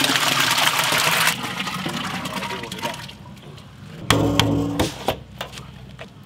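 Sugar syrup pouring off a large tray of gulab jamun and splashing into a steel vessel below, fading out over about three seconds. About four seconds in, a brief metallic clank and ring from the lid of a large stainless-steel pot.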